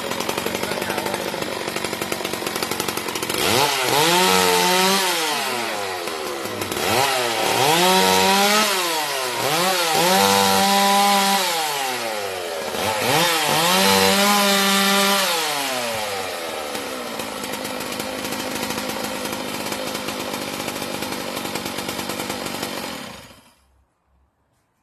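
Chainsaw revving up and dropping back four times, then running steadily before it stops sharply near the end.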